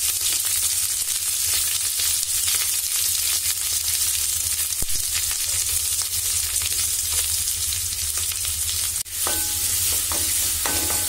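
Chopped onions and curry leaves sizzling in hot oil in a steel kadai, a steady hiss with scattered small pops. Near the end a spatula starts stirring them, scraping against the pan.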